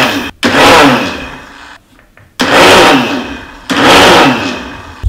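Electric mixer grinder pulse-grinding cashews in its jar, switched on in short bursts of about a second, four times, each dying away as the motor winds down. The stop-start grinding keeps the cashew powder dry so the nuts don't release their oil.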